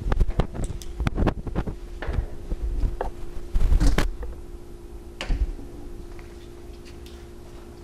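A run of irregular knocks, taps and thuds, heaviest about three and a half to four seconds in, over a steady electrical hum; the knocking stops after about five and a half seconds, leaving the hum.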